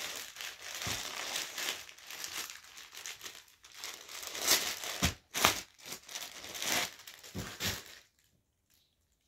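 Plastic packaging crinkling and rustling in irregular bursts as a wrapped dupatta is handled; it stops abruptly about a second before the end.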